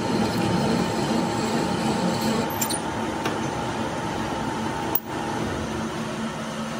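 Metal lathe running, its large four-jaw chuck spinning a compressor piston: a steady mechanical hum with a thin high whine. The whine drops out about five seconds in.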